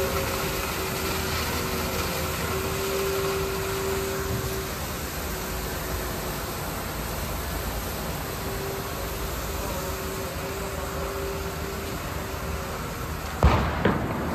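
Steady hiss of high-pressure liquid jets from a slurry tanker's manure spray and police water cannons, with a whining tone that comes and goes. Two sharp bangs about half a second apart near the end.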